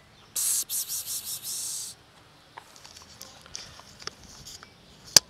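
A person calling a cat with a run of hissed 'psst' sounds, several short ones and a longer one. Faint handling rustles follow, then a single sharp click near the end.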